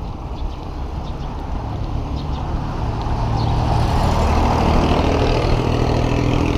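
Passenger jeepney's engine growing louder as it overtakes close alongside the bicycle, loudest in the second half.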